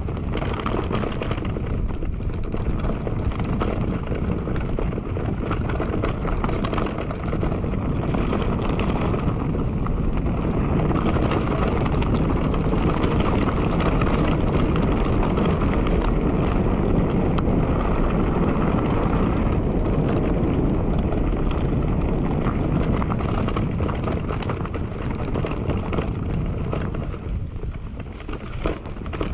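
Riding noise from an e-mountain bike on a trail: wind rushing over the action camera's microphone and the tyres rumbling over the ground, with a few sharp knocks near the end.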